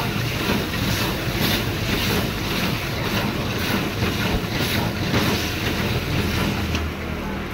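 Paneer Manchurian gravy sizzling and bubbling in a hot wok over a gas flame, with a steady low burner roar underneath. A ladle scrapes and stirs through the pan every half second or so.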